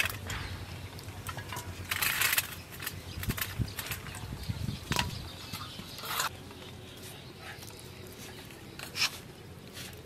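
Boiled potatoes being peeled by hand over a steel bowl: soft, wet rubbing and squishing of the skins, with a few light knocks against the bowl.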